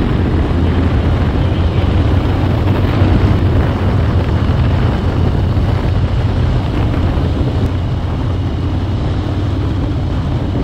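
Harley-Davidson V-twin motorcycle engine running steadily under way, a loud low rumble mixed with wind rush over the microphone.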